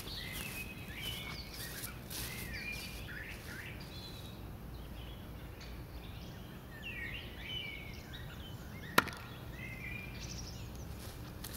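A throwing knife striking the wooden target once, a single sharp thunk about nine seconds in. Birds chirp in the background.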